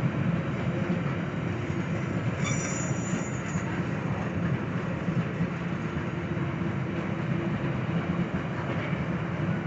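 Freight train of tank cars rolling past on a grade: a steady rumble of wheels on rail, with a brief high wheel squeal about two and a half seconds in.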